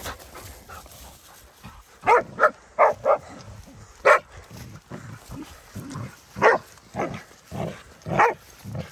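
Wachtelhund tracking dog barking at the dead moose calf it has tracked down: four short, loud barks in quick succession about two seconds in, then single barks spaced out through the rest.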